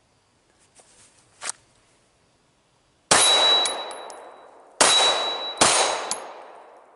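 Three pistol shots, the first two about a second and a half apart and the last two under a second apart. Each is followed by a long ringing clang, the ring of a struck steel target.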